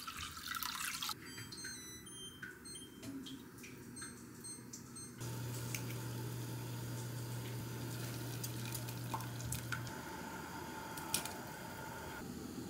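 Stock poured from a glass jug into a cast-iron pot, splashing for about a second. Then quieter kitchen sounds follow: a few light clicks, and from about five seconds in a low steady hum.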